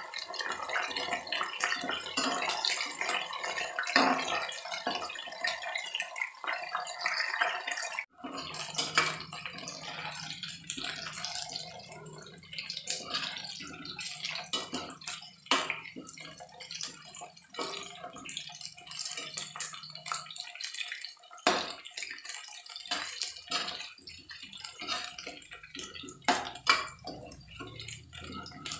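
Small whole potatoes deep-frying in hot oil in an aluminium kadhai, sizzling and crackling as they brown to golden. Denser sizzle for the first eight seconds, then a thinner crackle over a low hum, with a few sharp clacks of a metal slotted spoon against the pan.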